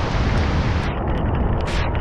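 Heavy tropical rain falling as a dense, loud hiss, with wind buffeting the microphone in a deep rumble underneath. A little under a second in the hiss turns duller, and a brief sharper hiss comes near the end.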